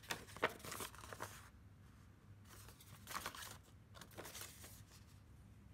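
Pages of a handmade paper journal being turned and handled: faint, brief paper rustles, a cluster in the first second and a half and a few more after about three seconds.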